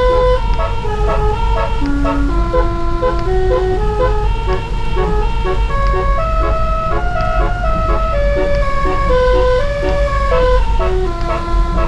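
Truck's electronic music horn playing a melody of short, steady notes stepping up and down, over a low steady rumble.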